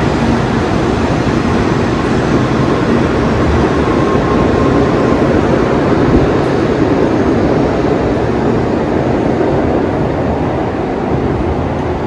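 Tokaido Shinkansen train running: a steady, loud rumble and rush of noise that eases slightly near the end.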